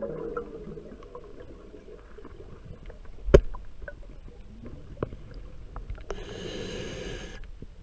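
Underwater sound between a scuba diver's exhalations: a single sharp crack about a third of the way in as a freshwater mussel shell is broken open, a few small clicks, then a hissing inhale through the regulator for just over a second near the end.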